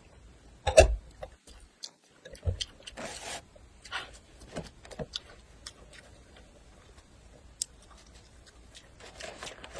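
Close-miked eating sounds: chewing and small wet mouth clicks after a mouthful of noodles, with a heavy thud about a second in as a ceramic bowl is set down on the stack, another softer knock and a short noisy burst a couple of seconds later.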